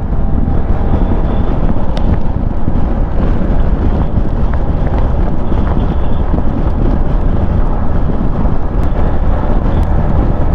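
Steady, loud wind buffeting on a motorcycle rider's microphone while riding, with vehicle and road noise beneath it.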